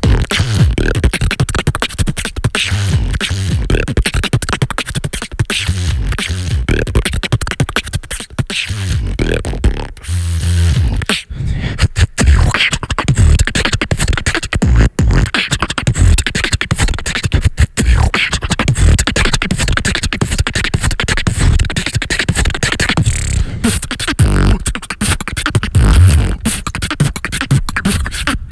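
Beatboxing into a handheld microphone: fast vocal drum patterns of sharp clicks and snares over deep bass kicks, taken up in turn by several beatboxers.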